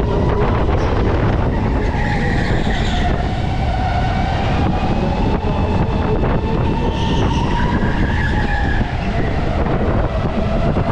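Go-kart engine running at speed, its pitch dropping, climbing again around the middle, then dropping near the end as the revs change through the lap, over a heavy low rumble.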